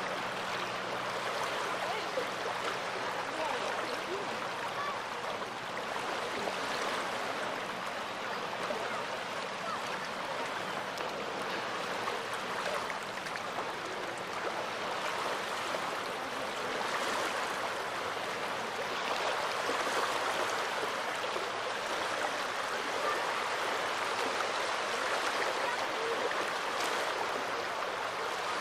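Small waves of the Gulf of Finland washing onto the shore: a steady wash of water that swells every few seconds.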